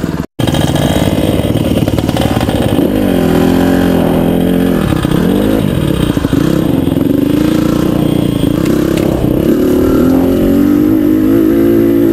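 Honda CRF150RB dirt bike's single-cylinder four-stroke engine under way, its note climbing and falling as the throttle opens and closes, with a sharp dip a few seconds in before it settles into a steadier, slowly rising pull. The sound cuts out for an instant just after the start.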